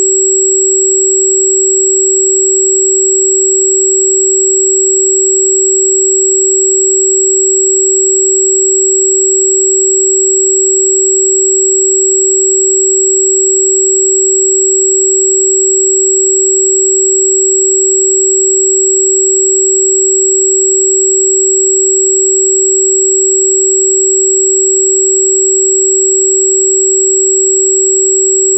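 A steady, unchanging pure sine tone at about 383 Hz: the 382.605 Hz 'healing frequency' assigned to Di Gu Pi (wolfberry root bark). A much fainter high whistle sits above it.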